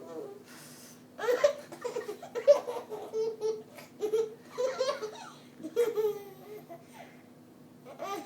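A young child laughing in a string of short, high-pitched bursts, most of them a second or so in and then tailing off after about six and a half seconds.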